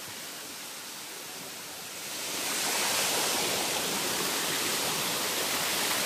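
Stream water rushing and cascading over boulders in a steady hiss, which grows louder about two seconds in and then holds.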